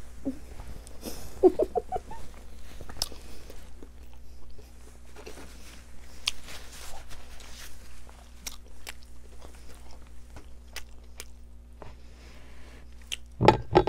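A person chewing a mouthful of Iraqi pacha (stuffed tripe with chickpeas), with wet mouth clicks and lip smacks scattered throughout, and a brief hummed 'mm' about a second and a half in.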